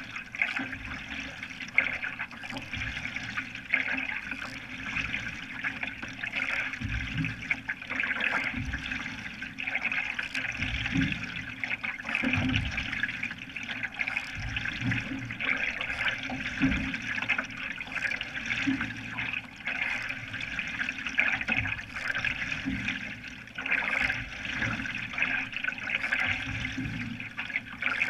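Water rushing and splashing around a canoe as a single-blade paddle drives it across a lake. Low pulses come every second and a half to two seconds, in time with the strokes.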